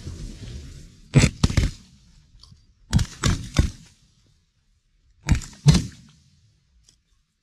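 A volley of shotgun shots from several duck hunters firing at decoying ducks: about seven sharp blasts in three quick bursts, two, then three, then two.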